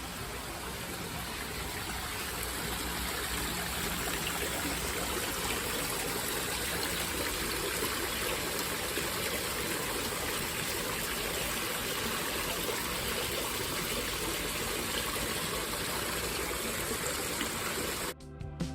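Steady rain falling, an even hiss of water that swells over the first few seconds and then holds. It cuts off suddenly near the end as music begins.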